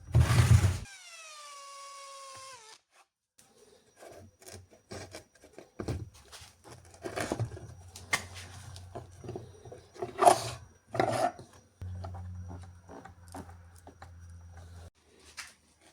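Workshop sounds. A short loud burst, then a power tool's motor whining down in pitch for about two seconds and stopping, followed by scattered knocks and clicks from handling tools and wooden parts.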